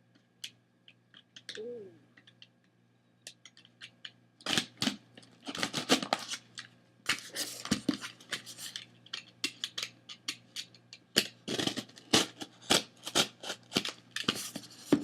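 A cardboard shipping box being opened by hand: a few faint clicks at first, then, from about four seconds in, a long run of sharp scraping, snipping and tearing noises.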